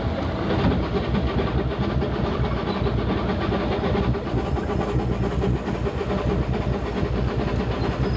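Narrow-gauge (2 ft) Crown Locomotive Works park train running along its track, heard from right behind the locomotive: a steady rumble with the clatter of wheels on rail.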